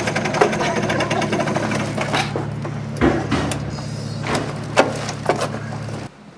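Small motor scooter's engine idling steadily, with scattered knocks and rustles over it. It cuts off abruptly about six seconds in.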